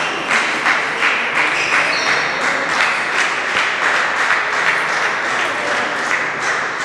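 Spectators applauding between table tennis rallies: many hands clapping at once in a dense, steady patter that eases off at the end.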